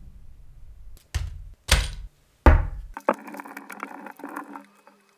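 A few sharp knocks as the small metal parts of a rebuildable dripping atomizer are handled and set down, the last the loudest, then a soft crinkling of a small plastic packet.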